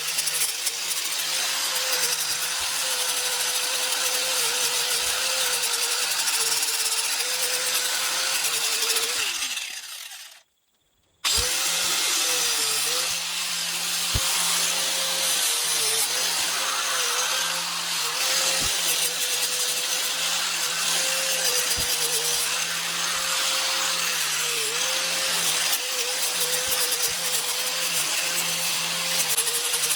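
A 5-inch grinder with an 80-grit sanding disc running at speed against wood, its motor pitch dipping over and over as the disc is pressed into the carving. About ten seconds in the motor winds down and the sound drops out for a moment, then the sanding resumes.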